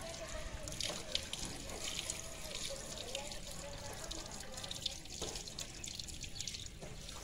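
Water from a garden hose running and splashing over a dog's wet coat and onto a concrete floor as the dog is rinsed by hand.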